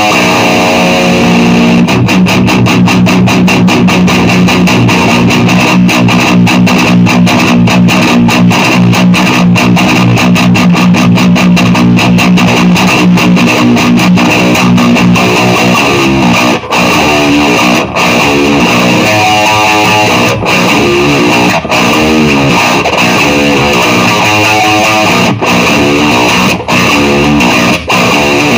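Heavily distorted electric guitar played through a Solar Chug distortion pedal into a Warwick Gnome amp head and Marshall cabinet. It opens with a fast, even chug on one low note; from about halfway it moves into a riff of changing notes broken by short stops.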